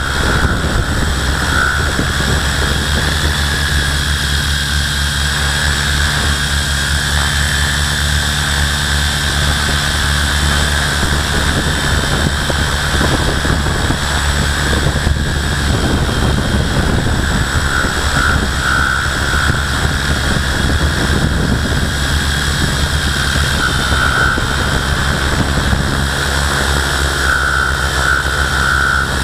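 Multirotor drone's electric motors and propellers whirring steadily while it hovers, heard up close from its own onboard camera: a loud, constant whine with slight wavers in pitch.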